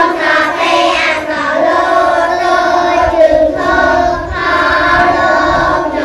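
A class of young children chanting together in unison, a sing-song group recitation broken into syllables.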